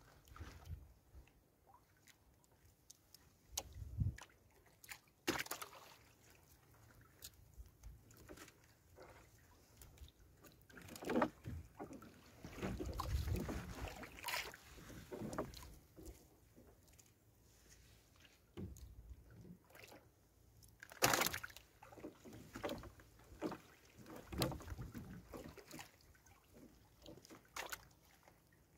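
Fishing net hauled up by hand into a small boat: wet netting rustling, water splashing and dripping off it, with scattered knocks.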